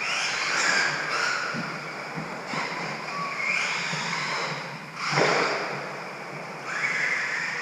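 Radio-controlled stadium truck's motor whining, its pitch rising and falling repeatedly as the truck accelerates and slows around the track, with a loud swell about five seconds in.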